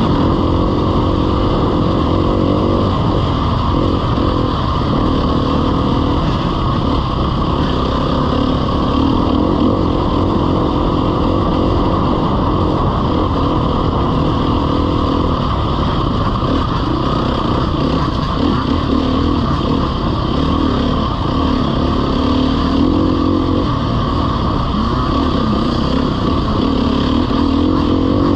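Off-road dirt bike engine running continuously, its pitch rising and falling over and over with the throttle during a hare scramble ride.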